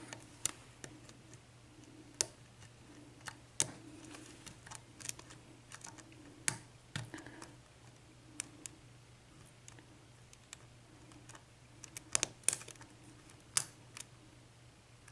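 Small, irregular metallic clicks and ticks of a lock pick probing and setting the spool pins inside a six-pin brass Brinks padlock under tension, with a quick cluster of louder clicks about twelve seconds in.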